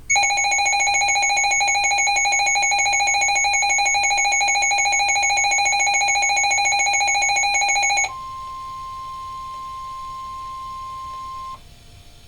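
Weather radio receiver alerting to a tornado warning: a loud, rapidly pulsing electronic alarm tone for about eight seconds, then a quieter steady single tone, the 1050 Hz warning alarm tone, for about three and a half seconds before it cuts off.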